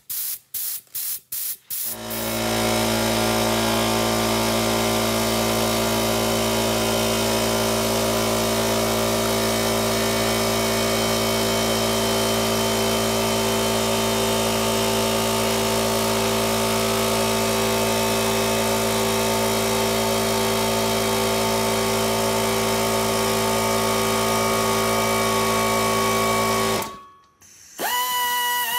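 A few short bursts of air from a handheld blow gun. Then the restored piston air compressor's electric motor and pump start about two seconds in and run steadily, refilling the tank, until the compressor shuts off near the end. Just after that, an air die grinder spins up with a rising whine.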